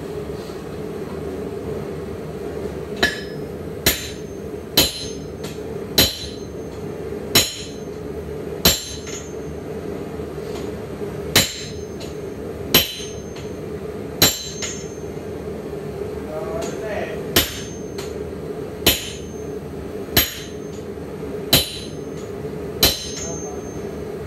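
Sledgehammer blows from a striker on hot steel on an anvil, forging tongs: about fourteen strokes, roughly one every second and a half with two short pauses, each with a brief metallic ring. A steady roar runs beneath.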